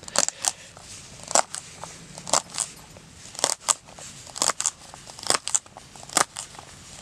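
Knife chopping crisp celery on a cutting board: sharp crunchy chops, often two close together, about once a second.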